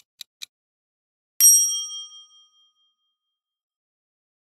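Quick, even countdown-timer ticks stop about half a second in. At about a second and a half, a single bright bell-like 'ding' chime rings out and fades over about a second: a quiz reveal sound effect marking the end of the countdown.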